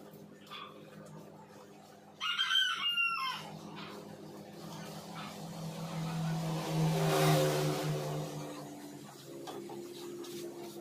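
A rooster crows once, about two seconds in, for a little over a second. A few seconds later a motor's sound swells and fades again, over a steady low hum.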